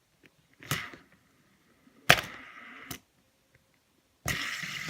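Sharp clacks and handling noise from a fidget spinner being picked up, set down and spun on a table: a clack about two-thirds of a second in, a louder one about two seconds in, and a longer stretch of rustling whir near the end.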